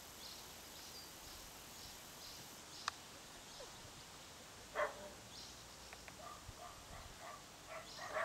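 Six-week-old Berger des Pyrénées à Face Rase (smooth-faced Pyrenean Shepherd) puppies yipping at play: one louder yelp about halfway, then a quick run of short high yips in the last two seconds.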